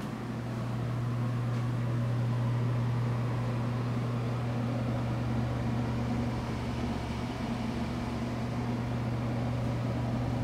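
A steady low hum with a fainter overtone above it, over an even hiss, unchanging throughout.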